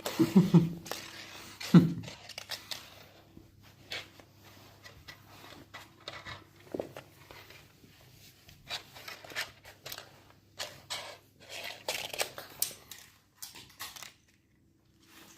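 Maine Coon cats playing: scattered scratches, rustles and light clicks of paws and claws, with two thumps in the first two seconds.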